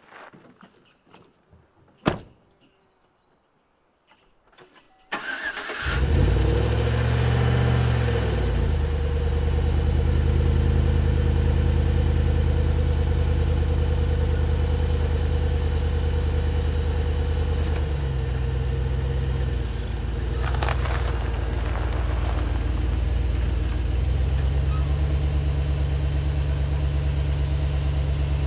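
A truck door thumps shut about two seconds in; a few seconds later the Chevrolet Silverado pickup's engine cranks, catches and settles into a steady idle on a cold start after the truck sat overnight. The idle drops a little about two-thirds of the way through and picks up again near the end.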